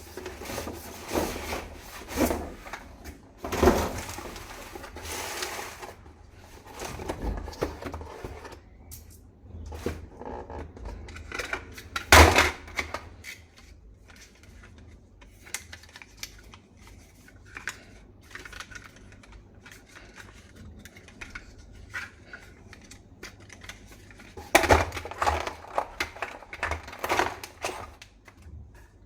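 Toy rifle and its packaging being handled: irregular plastic clicks, taps and rustling, with one sharper knock about twelve seconds in.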